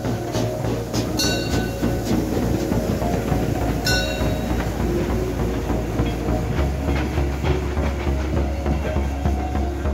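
Class 52 steam locomotive's tender and passenger coaches passing close by, wheels clattering over the rail joints.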